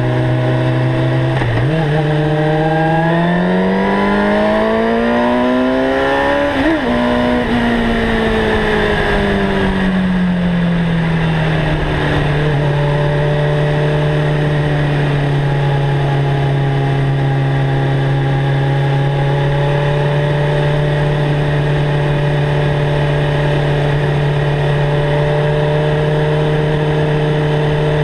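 Suzuki GSX-R 750 inline-four through a Mivv GP aftermarket exhaust, ridden on the road. The revs jump about a second and a half in and climb for some five seconds, flick briefly near seven seconds, then fall slowly over the next five seconds as the throttle comes off. The engine then holds a steady cruise under constant wind rush.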